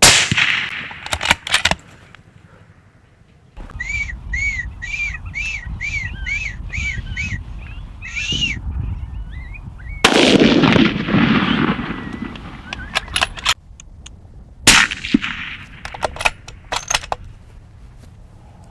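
Three rifle shots: one right at the start, one about ten seconds in, and one near fifteen seconds, each with a long rolling echo and a few sharp clicks after. Between the first two shots comes a run of about ten short, high chirping calls, a few per second.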